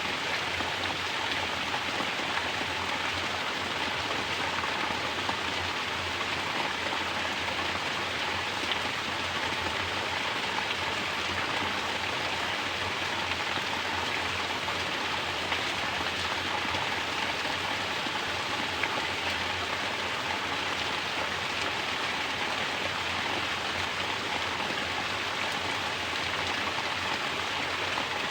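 Mountain water pouring from a natural shower and splashing down in a steady, unbroken rush.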